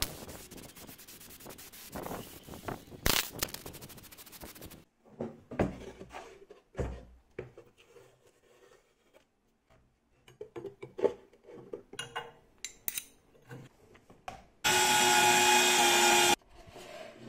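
Aerosol spray paint hissing in short bursts, then a cut to wooden parts being knocked and rubbed together as a plywood box is fitted. Near the end, a cordless drill runs for about a second and a half, driving a screw into the box.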